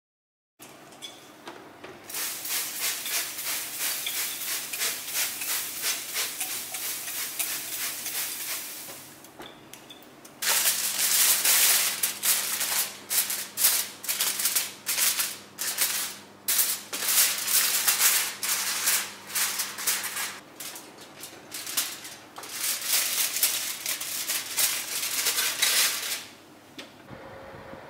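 Aluminium foil crinkling and crackling as hands press and fold it into a cover over a baking tray, in two long stretches with a short pause between.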